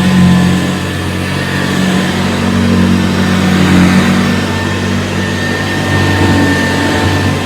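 Vintage Hoover Convertible upright vacuum running steadily, its motor giving a low hum with a faint high whine above it.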